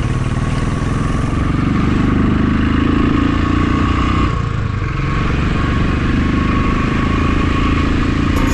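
Motorcycle engine running steadily under way, easing off briefly about four seconds in and then picking up again.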